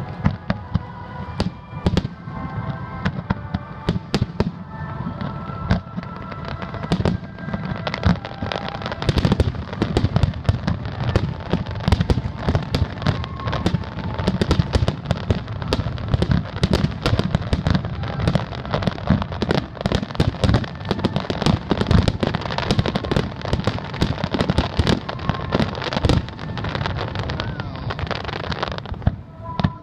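Aerial fireworks bursting: repeated sharp bangs and crackles that thicken into a dense, continuous barrage about eight seconds in and thin out just before the end, with music playing in the background early on.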